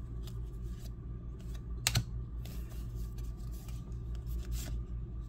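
Trading card stock being flipped through in the hands, card after card slid off the front of the stack: a run of light clicks and snaps, with one sharper snap about two seconds in, over a steady low hum.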